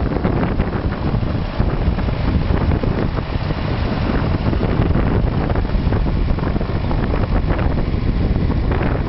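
Diesel engines of a tandem Doe Triple-D tractor running under load as it pulls a plough past, mixed with heavy wind noise on the microphone.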